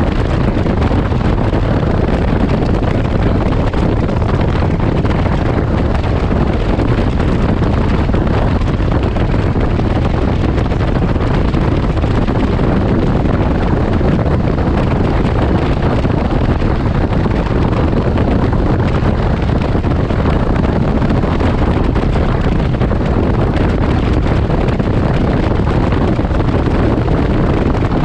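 Steady, loud wind buffeting on the microphone of a 2019 Can-Am Ryker Rally three-wheeled motorcycle cruising at highway speed, with the machine's running and road noise underneath.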